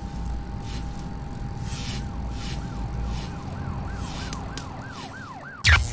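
Electronic intro sound effect: a steady hum with a siren-like warble in the second half, quick rising-and-falling pitch sweeps about three a second, cut off by a loud hit near the end.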